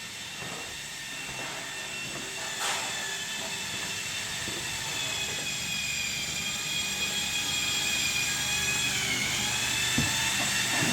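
Power tool running with a steady high whine that grows louder, its pitch dipping briefly and recovering near the end, with a sharp click early on and a knock near the end.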